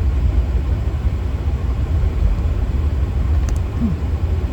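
Steady low rumble of road and engine noise inside a moving car's cabin, with a single faint click about three and a half seconds in.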